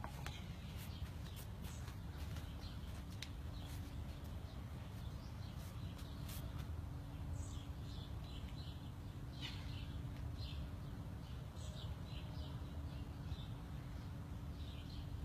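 Outdoor ambience: small birds chirping in short, scattered calls over a low steady rumble. A faint steady hum comes in about two seconds in and stops near the end.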